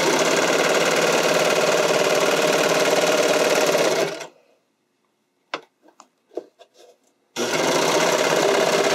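Sewing machine stitching elastic onto spandex at a steady, fast speed, stopping about four seconds in. A few light clicks follow as the fabric is handled, then the machine starts stitching again about seven seconds in.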